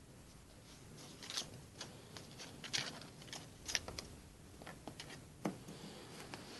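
A calico cat squirming and rolling on a fabric chair cushion: faint, irregular scratches and rustles of claws and fur on cloth, a few of them sharper ticks.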